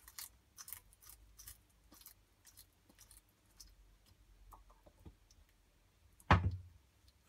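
Bearded dragon chewing a live locust: a run of sharp, crisp crunching clicks, several a second at first and then thinning out. Near the end comes one loud thump.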